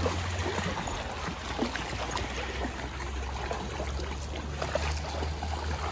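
Shallow creek water running and trickling over rocks, with scattered small splashes of dogs wading through it, over a low steady rumble.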